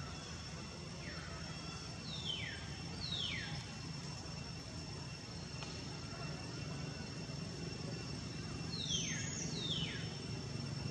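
Bird calling: several short high whistles that each slide steeply down in pitch, mostly in pairs about a second apart, a few seconds in and again near the end, over a low steady hum.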